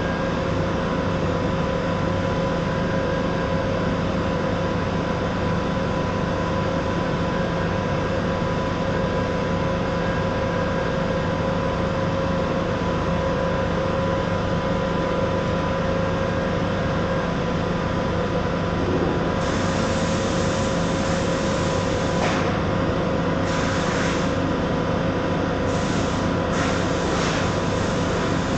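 Ozen TIG welder running with a steady electrical hum and hiss. In the last third a sharper, brighter hiss starts and stops several times.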